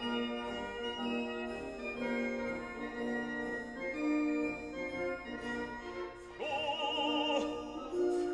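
Background music: sustained organ-like keyboard chords, joined about six seconds in by an operatic singing voice with heavy vibrato.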